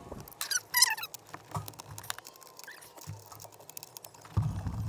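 A Phillips screwdriver turning the screws out of a Mazda MX-5 ND's plastic blower motor housing. There are a few short squeaks in the first second, then scattered light clicks and ticks of metal on plastic, and a low rumble of handling near the end.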